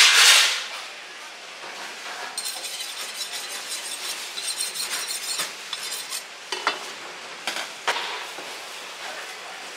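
A short loud rush of noise at the very start, then a butcher's knife scraped rapidly back and forth along a honing steel for a few seconds, a fast run of metal-on-metal strokes. Near the end come a few separate short scrapes as the knife cuts into a pork carcass.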